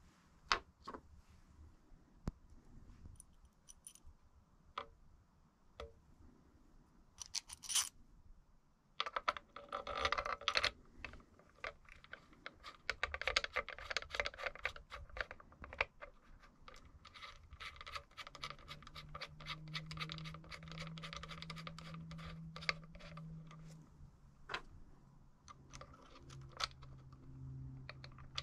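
Small metal tools and bearing parts clicking and clattering as they are handled, with a dense run of rapid clicking through the middle. A low steady hum comes in about two-thirds through.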